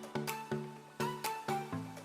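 Music: pitched notes struck with sharp attacks in a quick, steady rhythm, changing chord about every half second.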